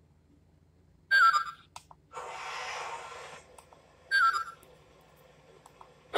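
An O gauge model locomotive's onboard sound system playing electronic cab sounds: two short ringing chirps about three seconds apart, with a hiss between them.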